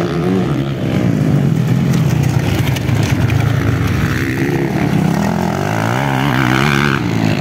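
Motocross dirt bike engines revving hard, pitch rising and falling repeatedly as the riders open and close the throttle.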